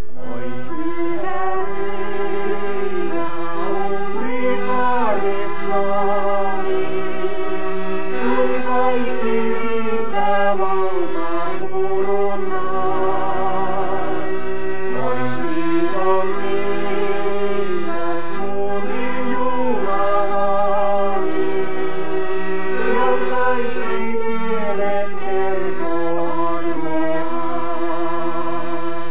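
A piano accordion and a chromatic button accordion playing a slow melody together over sustained chords, the long held notes wavering.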